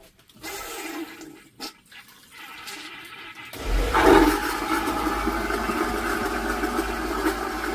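Dometic 7406 macerating RV toilet flushing. Quieter water sounds come first, then about three and a half seconds in the macerator pump starts with a low hum and runs steadily, grinding and pumping the bowl out. The pump is working after its control board was repaired.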